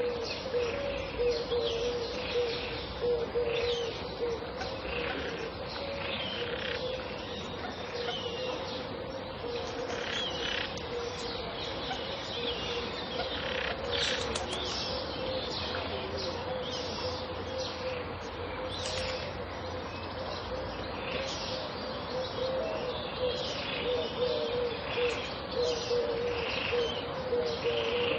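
Pond ambience with several kinds of birds: many short chirps and calls, with doves cooing, over a steady low pulsing note.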